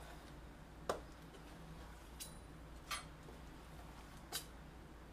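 Light kitchen handling as raw chicken is cut and packed into jars: four short, sharp knocks and clicks spread over a few seconds, over a low steady hum.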